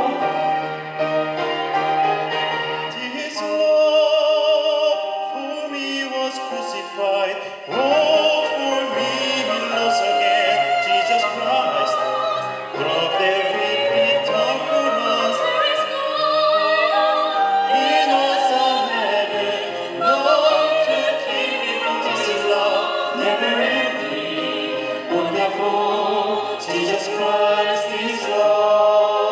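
Live orchestra accompanying an operatic-style soloist, the melody held in long notes with wide vibrato.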